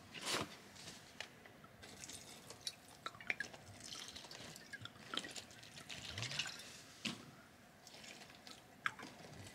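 Water poured from a glass bottle into a paper sack of soil, faintly trickling and dripping, with scattered small clicks and paper rustles.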